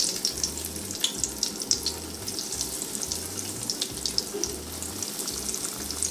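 Coconut-and-panko-breaded lobster chunks frying in a pan of hot oil: a steady sizzle with constant irregular crackling pops as pieces are added.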